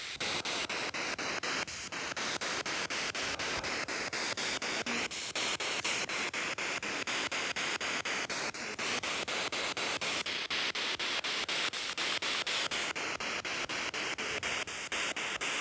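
A P-SB7 spirit box radio at full volume sweeping rapidly through radio stations: loud white-noise static chopped by a steady run of quick clicks, several a second, as it jumps from frequency to frequency.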